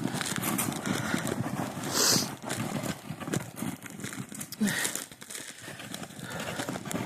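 Footsteps crunching through snow and ice, a steady run of irregular crackling crunches, with a couple of louder hissing rushes about two seconds in and near five seconds.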